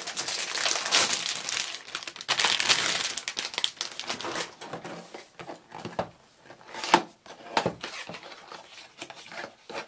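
Packaging of a collectible mystery wand box being opened by hand: dense crinkling and rustling for the first four seconds or so, then sparser crackles and a few sharp clicks, the loudest about seven seconds in.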